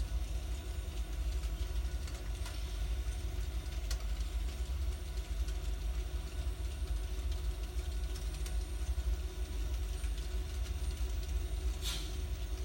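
N scale model train running on the layout: a steady low rumble with a few faint clicks along the way.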